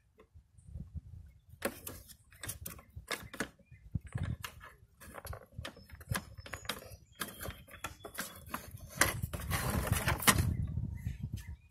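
Irregular clicks and knocks from the rear-wheel height adjuster of a Husqvarna push mower as it is worked down past its last notch and the wheel is handled, with a longer scraping rustle about nine seconds in.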